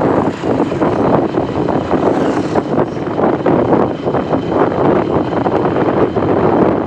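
Moving passenger train: a steady loud rumble with a continuous rattle.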